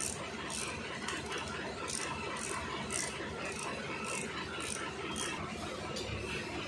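Socket ratchet wrench being worked on the bolts of an Eicher 485 tractor's differential case, its pawl clicking in short bursts about twice a second.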